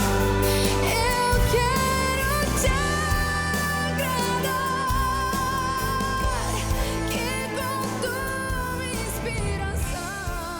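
A pop-style Christian worship song: a held, wavering sung melody over bass and accompaniment, slowly fading out.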